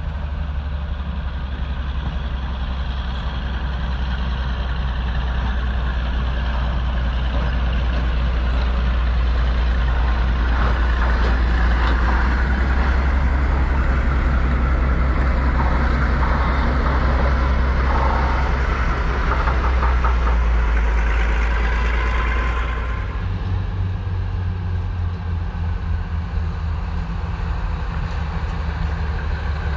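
Heritage diesel locomotive engine running under power, its deep rumble growing louder as the train approaches. About three-quarters of the way through the engine sound drops away suddenly as the locomotive passes, leaving a lower rumble of the train running by.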